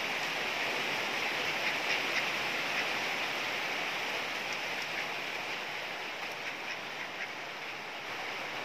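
Rain falling steadily, an even hiss that eases a little near the end.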